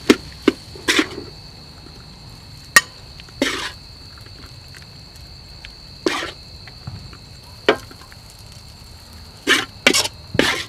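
Metal spatula scraping and knocking against a steel wok as fried rice is scooped out onto a plate: a string of sharp scrapes and clacks at uneven intervals, several close together near the end. Crickets chirr steadily throughout.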